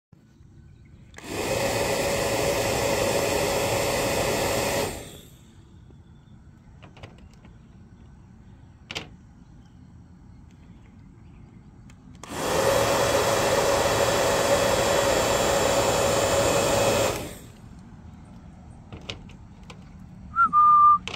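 Battery-powered bubble gun's motor and fan whirring steadily in two runs of about four seconds each, switching on and off sharply, blowing out bubbles. Near the end comes a brief high-pitched squeak.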